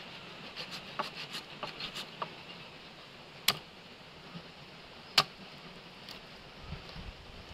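Large cleaver chopping a raw whole chicken on a wooden cutting board: a run of small cracks and clicks as the blade works through the joints, then two sharp knocks of the blade striking the board, about a second and a half apart.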